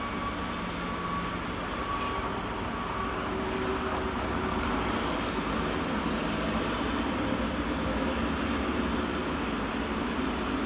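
Steady mechanical drone of heavy mulching-yard machinery, with a low rumble underneath. A faint steady tone stops about three seconds in.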